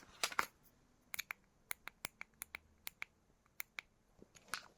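A run of sharp, irregular clicks and taps as small tools are popped out of and pressed back into a laser-cut wooden pocket organiser held together with rubber O-rings.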